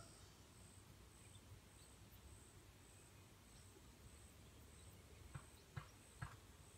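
Near silence outdoors. A faint high-pitched pulse repeats about three times every two seconds, and three faint clicks come a little past five seconds in.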